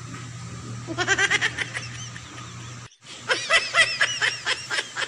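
A person giggling in quick, high-pitched bursts, twice: about a second in and again after a brief dropout near the three-second mark.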